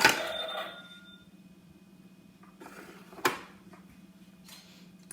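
Barbie toy cash register giving a short bell-like ring with a clatter, followed by a single sharp click about three seconds in.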